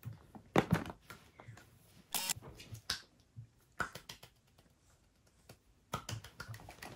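Handling noise from grocery items being unpacked: a few separate knocks and clicks as packages are picked up and set down, with a short rustle of packaging about two seconds in.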